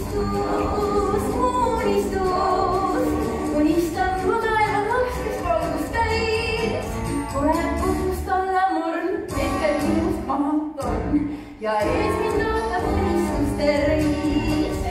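A song from a stage musical: a woman's voice singing a melody over instrumental accompaniment, with a short break in the music about two-thirds of the way through.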